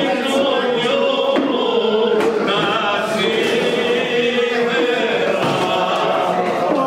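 Music with men's voices singing or chanting a steady melodic line.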